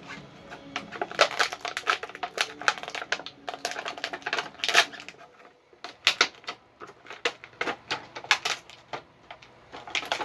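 Rapid, irregular plastic clicking and clattering as a Star Wars Black Series action figure and its plastic packaging tray are handled, with a short pause about halfway through.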